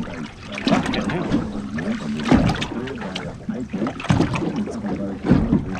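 Water slapping and lapping against the hull of a small boat, with scattered knocks and a steady low hum underneath.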